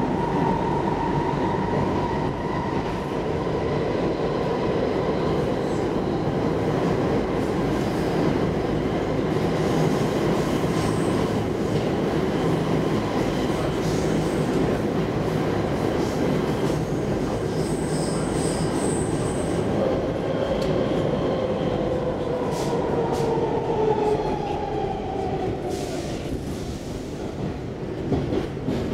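Stockholm Metro C14 train running, heard from inside the passenger car: a steady rumble of wheels on rail with a motor whine that falls in pitch in the second half as the train slows. Brief high squeals come about eighteen seconds in.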